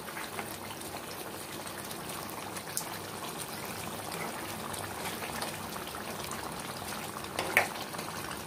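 Chicken and potato curry simmering and bubbling in a nonstick pan while a silicone ladle stirs through it, with small ticks and one brief louder sound near the end.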